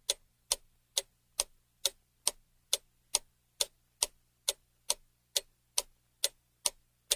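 Ticking-clock sound effect serving as a countdown timer for guessing: sharp, evenly spaced ticks at about two a second over a faint low hum.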